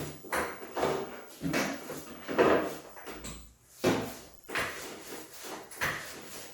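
A run of irregular knocks and scrapes, roughly one or two a second, like wood or fittings being handled.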